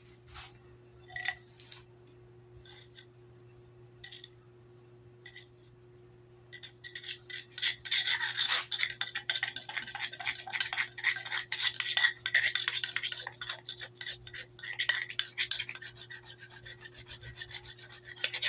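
Friction fire roll being rolled rapidly back and forth under a flat wooden board on concrete, a fast rasping rub that starts about six seconds in after a few light taps. The rolling builds friction heat to bring the roll to a smoulder.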